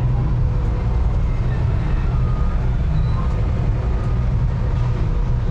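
Steady low rumble of motor vehicles.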